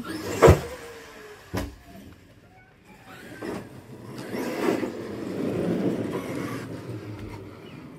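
Traxxas X-Maxx electric RC monster truck landing a jump with a heavy thud about half a second in, then a smaller knock a second later. It then drives on over rough ground, with a rough rumble from its tyres and motor.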